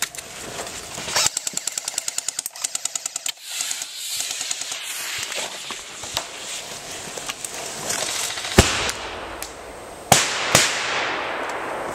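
Airsoft gunfire: a rapid full-auto burst of about ten shots a second, lasting about two seconds. Later comes one sharp bang, then two loud bangs close together from a thermobaric multi-bang airsoft grenade, each leaving a hiss that dies away.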